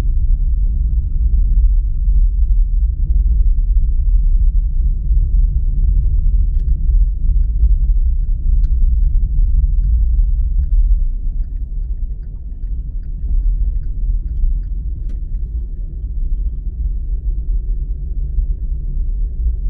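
Steady low rumble of a car on the move, road and engine noise, easing slightly about halfway through.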